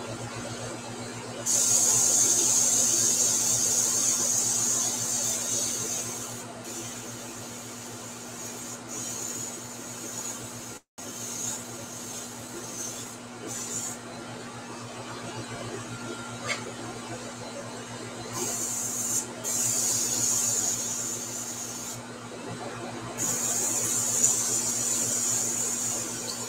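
Airbrush hissing in bursts as air and paint are sprayed, the longest bursts in the first few seconds and again from about 18 seconds to near the end, over a steady low hum.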